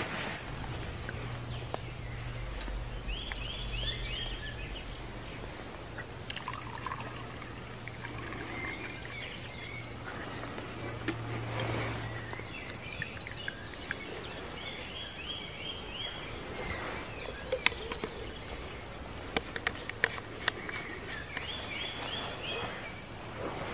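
Forest ambience with songbirds singing: short runs of quick notes stepping down in pitch, repeated several times, and high thin chirps, over a steady outdoor background noise with a few faint clicks.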